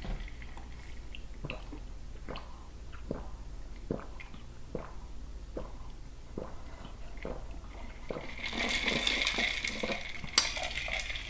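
Wet mouth smacks and chewing, a short click about every second, then a drink slurped through a straw for about two seconds near the end.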